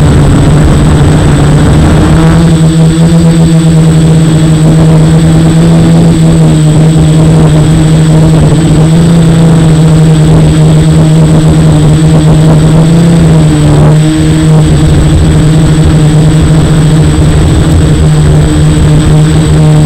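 F450 quadcopter's motors and propellers running in flight, a loud steady buzzing hum whose pitch wavers slightly as the throttle changes.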